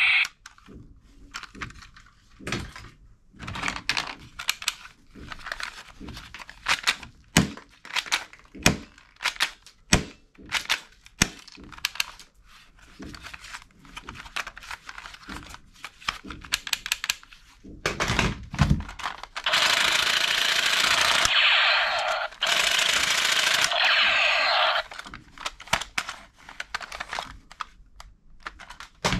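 Plastic toy guns clattering and knocking as they are handled and pulled from a box full of toys. Twice, about twenty seconds in, a toy gun's electronic firing sound effect plays from its small speaker, each burst lasting about two seconds and stopping abruptly.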